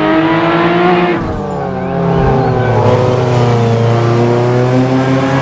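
Sports-car engine sound effect: an engine running at a steady pitch, its revs dipping briefly about a second in before settling.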